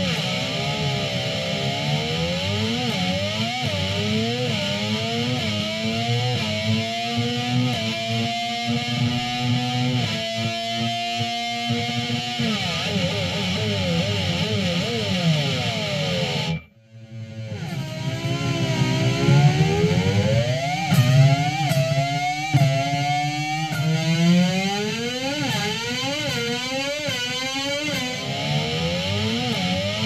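Distorted electric guitar imitating a 2014 Formula 1 V6 turbo engine: the pitch glides up over and over and drops back, like an engine revving through upshifts, with a brief break about halfway through before the sweeps resume.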